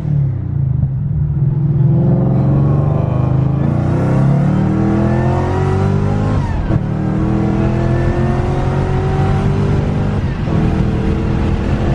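2014 Shelby GT500's supercharged 5.8-litre V8 under hard acceleration, its pitch climbing steadily through each gear. It drops abruptly at quick gear changes about seven and ten seconds in, then climbs again.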